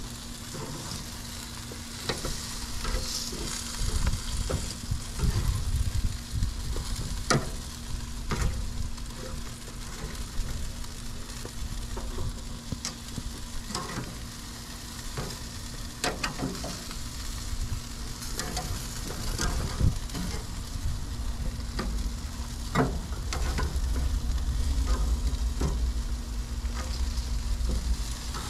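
Chicken leg quarters sizzling directly over hot charcoal on a grill, a steady frying hiss with scattered sharp pops and clicks.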